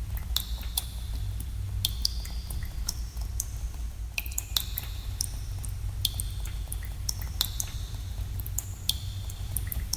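Water drops falling into pools in a cave: irregular plinks, about two a second, each with a brief ringing tone, over a steady low rumble.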